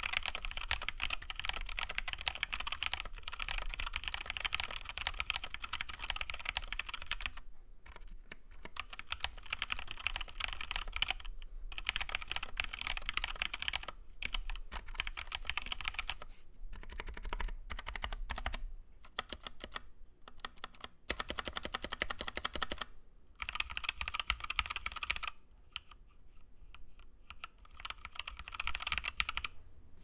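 Typing on a home-built 60% mechanical keyboard with Gateron Black linear switches, lubed stabilizers and an aluminium plate in a plastic case: rapid, continuous keystrokes with short pauses now and then.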